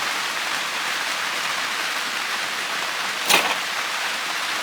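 Steady rain-like hiss, with one sharp click a little over three seconds in.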